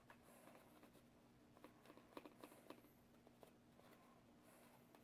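Near silence: faint small clicks and taps, bunched together about two seconds in, over a low steady hum.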